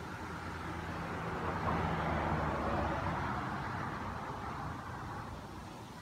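A road vehicle passing by: engine hum and tyre noise swell to a peak about two seconds in, then fade away.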